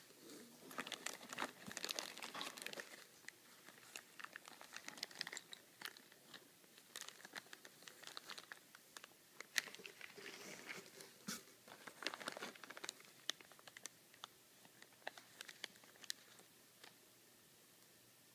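Clear plastic parts bags crinkling and rustling as they are handled in a cardboard box, in irregular bursts of small sharp crackles that thin out near the end.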